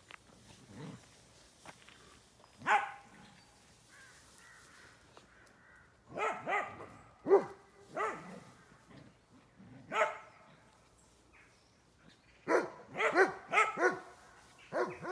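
Dogs barking at play in short, separate barks: a single bark, then a few spaced barks, then a quick run of barks near the end.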